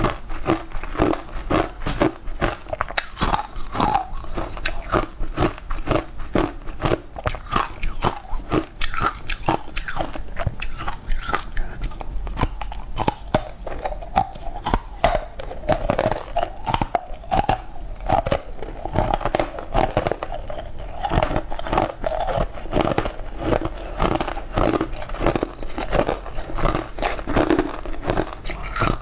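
Close-miked crunchy biting and chewing of lumps of pressed green powder, a dense, continuous run of crunches.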